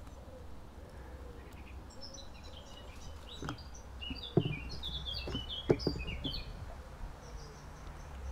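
A small songbird twittering in quick, high chirps, with several sharp knocks and clicks as the air rifle is handled on its bipod on a wooden table.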